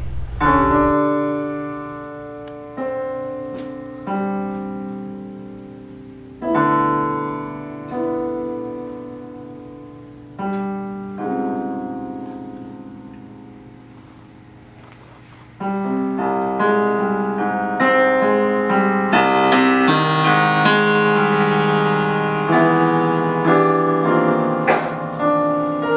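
Yamaha digital piano played slowly: single chords struck every few seconds and left to ring and fade away, then, about two-thirds of the way through, the playing turns louder and busier with a steady stream of notes and chords.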